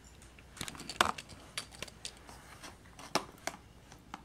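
Scattered sharp clicks and clatters of small toy cars and plastic track pieces being handled, the loudest about a second in and a few more later.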